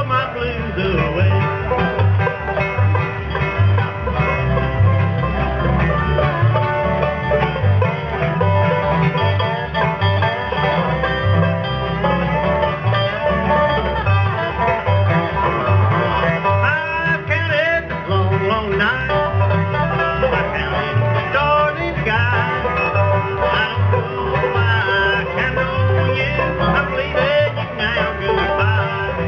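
Bluegrass band playing an instrumental: banjo picking over guitar, with a steady bass beat.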